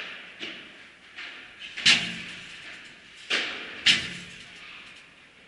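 A padel rally: about five sharp hits of the ball off rackets and court surfaces, each echoing in the large indoor hall, the loudest about two seconds in and again about four seconds in.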